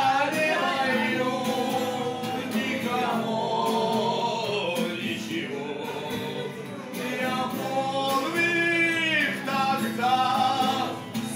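A song sung to an acoustic guitar, with the guitar played along under the voice.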